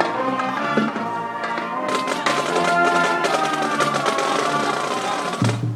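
A school band playing at rehearsal: held chords from several pitched instruments over drum strokes, with a low bass note coming in near the end.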